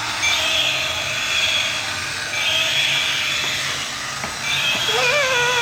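Motorized walking Triceratops toy's small motor and gears whirring, swelling and easing in a repeating cycle about every two seconds as it steps. Near the end a short warbling pitched sound drops away steeply in pitch.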